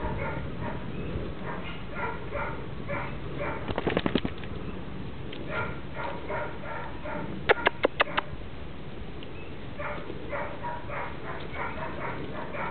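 Hunt Terrier puppies squeaking and yipping in quick runs of short, high calls as they play. A couple of brief clusters of sharp clicks stand out, the loudest a rapid run of five about halfway through.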